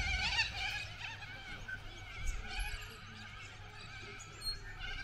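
Metal playground swing squeaking over and over as it swings back and forth, with a low rumble of wind on the moving microphone and a bump right at the start.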